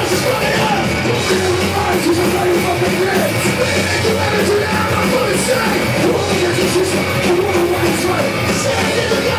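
Street punk band playing loud live music, with a shouted vocal over the band.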